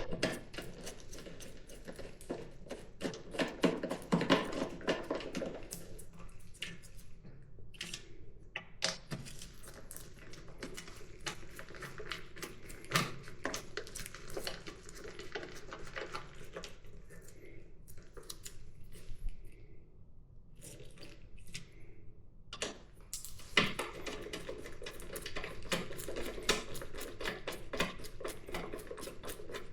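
Hand tools and metal parts clicking and clinking in quick runs of small sharp knocks, with a couple of short pauses.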